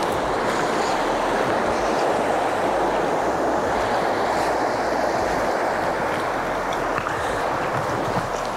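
Steady rushing of a clear river flowing fast over a rocky, cobbled bed.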